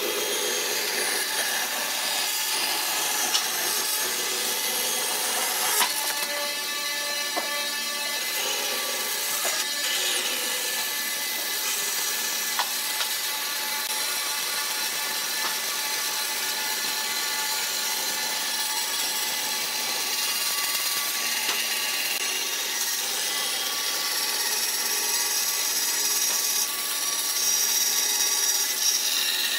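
Band saw running steadily and cutting a curve through a thick wooden board, the blade hissing through the wood over the steady whine of the machine.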